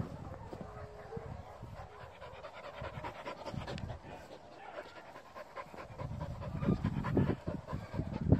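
Dog panting rapidly and excitedly, with louder low thumps and rustling near the end.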